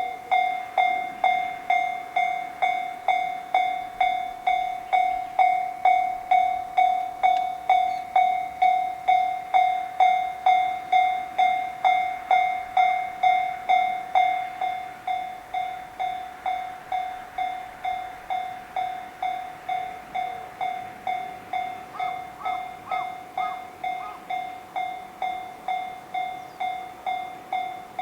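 Japanese railroad crossing alarm ringing, starting suddenly and repeating a steady "kan-kan" tone about twice a second: the warning that a train is coming.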